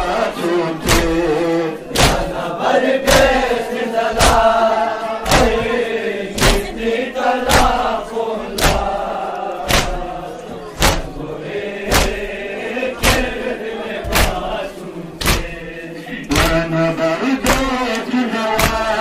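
Shia mourners doing matam: many hands slapping chests together, one loud slap about every second, under men's voices chanting a noha.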